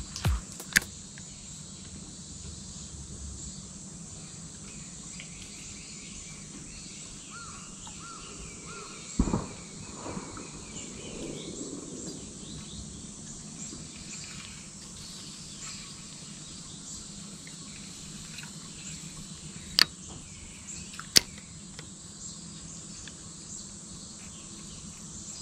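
Steady outdoor ambience of chirring insects with a few faint bird calls. A soft thump comes about nine seconds in, and a few sharp clicks are heard, two of them close together around twenty seconds in.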